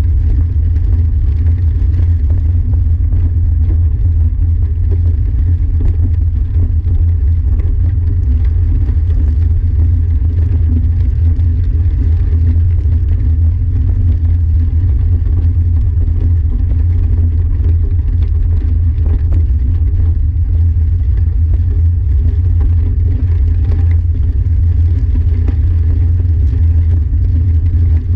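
Steady, loud low rumble of wind buffeting an action camera's microphone, with rolling noise from moving along a gravel trail.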